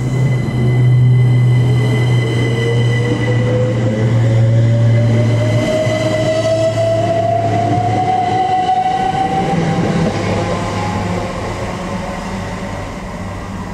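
GWR Class 387 Electrostar electric multiple unit pulling away from the station, its traction motors whining in a slowly rising pitch as it accelerates. The sound grows fainter over the last few seconds as the train draws away.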